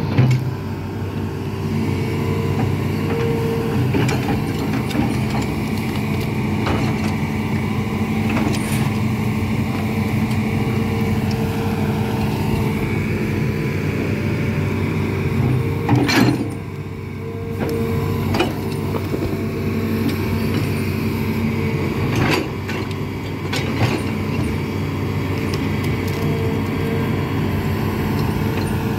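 Hitachi amphibious excavator's diesel engine running steadily under load as the machine hauls itself up a muddy bank on its pontoon tracks, with the track chains clanking and creaking. Now and then there is a louder metallic knock.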